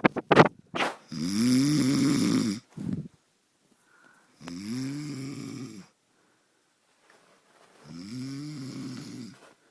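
A sleeping man snoring: three long snores about three seconds apart, each rising and falling in pitch, the first the loudest. A few sharp clicks come in the first second.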